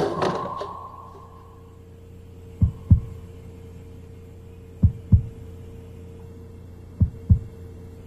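Heartbeat sound effect: three slow double thumps, lub-dub, about two seconds apart, over a steady low hum. A music cue dies away with a ringing note in the first second.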